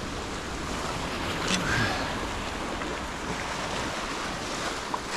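Ocean surf washing steadily on the shore, with wind over it. A small click near the end.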